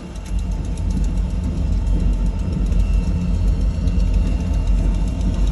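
Freight train with diesel locomotives passing close by: a loud, steady low rumble that swells about half a second in.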